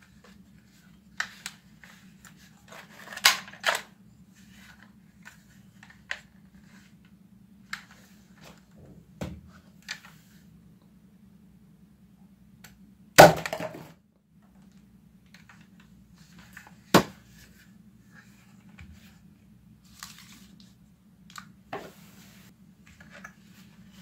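Plastic clicks and clacks of a foam-dart toy blaster being handled, loaded and cocked, with a double snap about three seconds in. The loudest sound, about thirteen seconds in, is a sharp snap with a short clatter after it, fitting a dart shot at the plastic cup, and another sharp click comes about four seconds later.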